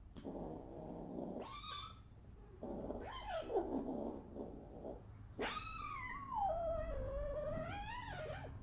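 Kitten growling, with short cries about one and a half and three seconds in, then one long wavering yowl lasting about three seconds near the end: the warning noises of a kitten ready to fight.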